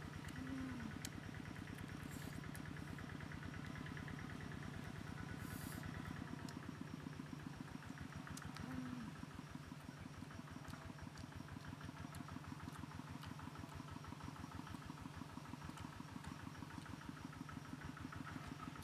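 A small engine idling steadily with a fast, even pulse. Two short animal calls rise and fall over it, one about half a second in and one about nine seconds in.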